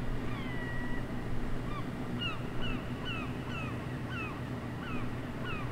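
Birds calling: one longer call near the start, then a steady run of short falling calls, over a steady low hum.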